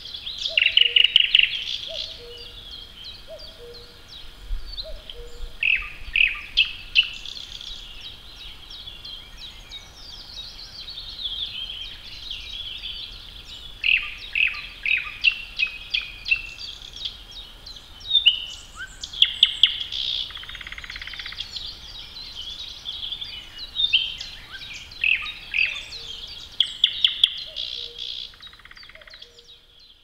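Several songbirds singing over one another in a spring forest: bright chirps, trills and whistled phrases, with a low two-note call repeated steadily during the first few seconds and again near the end. It fades out at the very end.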